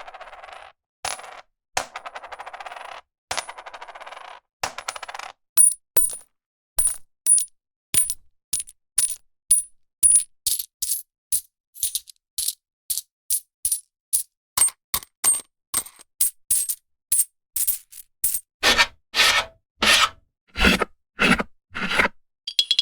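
A string of coin sound effects: a few seconds of coins rattling, then a long run of single coins clinking and dropping about twice a second, each with a bright high ring, and near the end heavier, fuller coin impacts.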